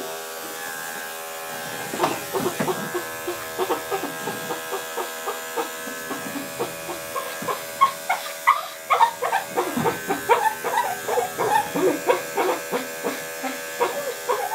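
Small electric dog clipper running with a steady high-speed hum while trimming around a dog's feet. From about two seconds in, a rapid, irregular string of short sounds rides over the hum and grows louder in the second half.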